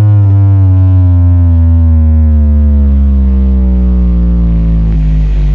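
A huge horeg carnival sound system plays a loud, deep droning tone with heavy bass that slides slowly down in pitch, then settles low near the end.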